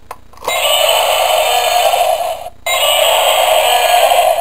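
Electronic T. rex roar from the Chap Mei toy's built-in sound chip, set off by its trigger and played through a small tinny speaker with no low end: a Godzilla-style roar, two roars back to back with a brief break about two seconds in.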